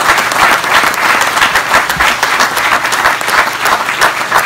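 Audience applauding, a dense, steady round of clapping from many hands.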